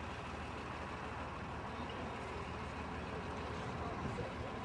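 A steady low mechanical hum under constant outdoor background noise, with no breaks or sudden sounds.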